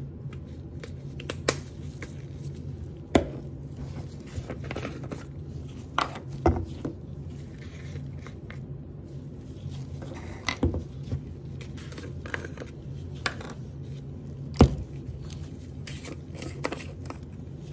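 Plastic spice jars and their lids being handled: scattered sharp clicks and knocks as lids are twisted off and jars are picked up and set down on the counter, over a steady low hum.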